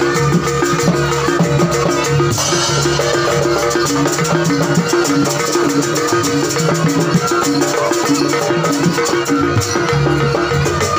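Loud live jaranan music from a gamelan ensemble: a short melody repeating steadily over drums and percussion.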